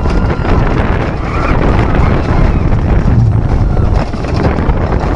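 Onboard a suspended roller coaster train running through its course: heavy wind buffeting the microphone over the train's low rumble along the track.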